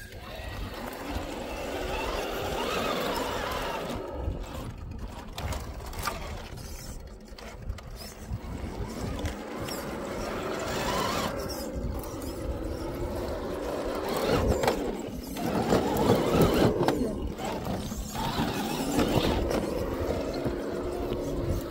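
Electric motor and geared drivetrain of a 1/10-scale RC rock crawler whining, rising and falling in pitch with the throttle as it crawls up a rocky slope. It is loudest in the second half.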